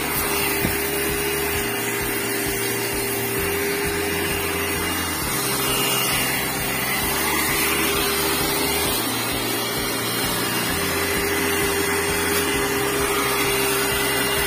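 Portable high-pressure washer running steadily, its motor humming under the hiss of the water jet spraying.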